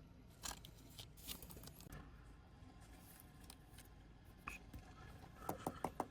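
Faint plastic rustles and light ticks as a trading card is slipped into a soft plastic card sleeve. Near the end comes a quick run of sharp clicks, several a second.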